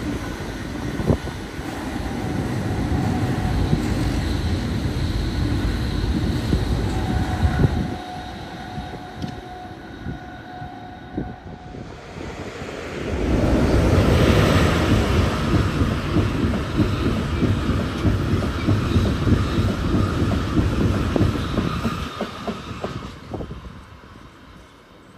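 Trains passing close by, wheels clattering over the rails. One loud pass fills the first part and eases off, and a second, louder pass builds from about halfway through and dies away near the end.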